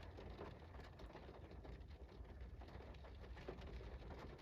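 Faint steady rain, with scattered drops ticking.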